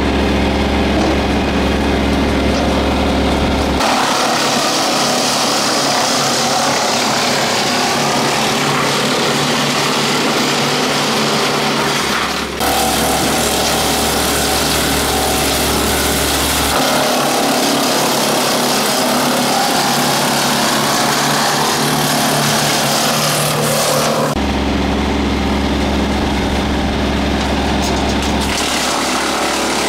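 Tractor engine running steadily while driving an 8-inch PTO wood chipper, with the engine and chipper sound shifting abruptly several times.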